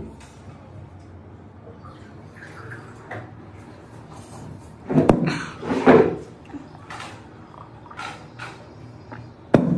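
A person drinking water from a glass between mouthfuls, with the glass clinking sharply about five seconds in and again near the end. Short vocal sounds from the drinker come about five to six seconds in.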